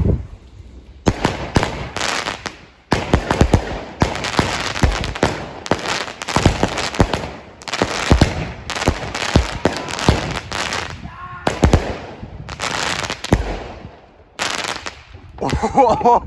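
Aerial fireworks going off: a long series of sharp bangs and crackling star bursts in quick clusters, starting about a second in, with a short lull near the end.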